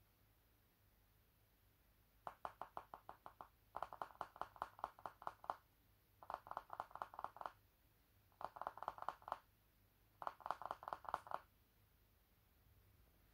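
Baby squirrel making rapid clicking, about seven clicks a second, in five short bouts with pauses between them.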